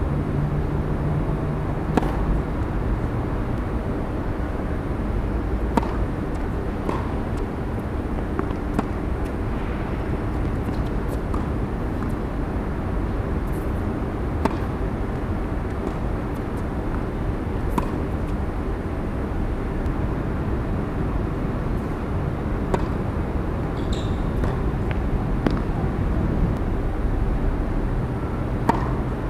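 A tennis ball struck by rackets during singles play: single sharp hits, a second or several apart. They come over a steady low background rumble.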